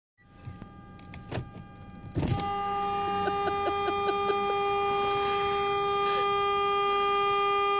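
A car horn sounding one long, steady, unbroken blast that starts about two seconds in, held down by a dog leaning on the steering wheel.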